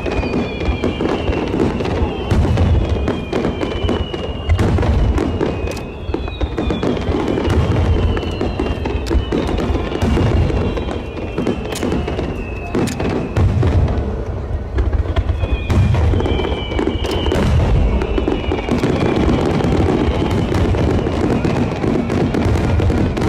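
Fireworks display: aerial shells bursting one after another with deep booms and sharp cracks, with music playing over it.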